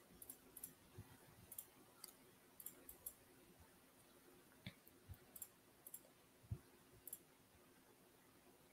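Faint computer mouse clicks, about a dozen short clicks at irregular intervals, over a faint steady hum.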